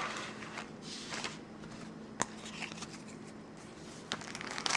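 Yu-Gi-Oh! trading cards being handled and shuffled together: soft rustling with a few light clicks, getting busier near the end.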